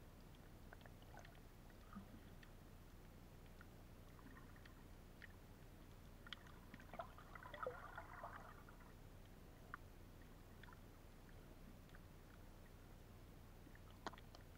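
Near silence, heard underwater: a low muffled hum with scattered faint clicks, a short patch of crackling about seven to eight and a half seconds in, and a sharper click near the end.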